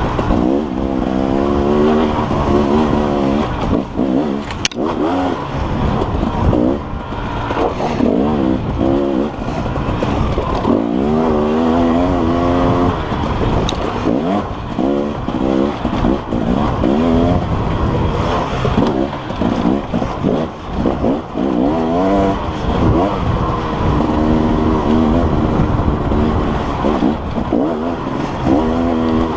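KTM dirt bike engine revving up and falling back again and again as the rider rolls the throttle on and off and shifts along a twisting trail, heard from the rider's helmet camera over a constant low rumble. A single sharp click about five seconds in.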